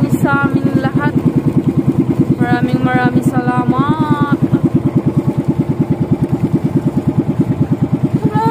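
Outrigger fishing boat's engine running steadily at cruising speed, a rapid, even chugging pulse.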